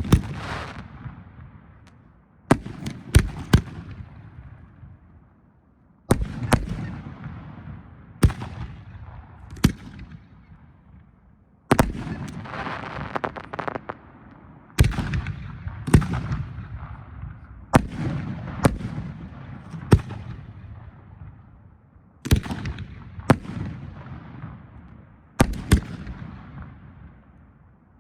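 Aerial firework shells bursting one after another in a professional display: sharp booming reports every second or few, sometimes two or three close together, each followed by a rolling rumble that dies away.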